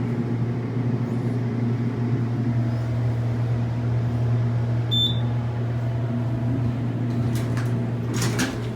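Elevator cab running: a steady low hum, with a short high beep about five seconds in and a few knocks near the end.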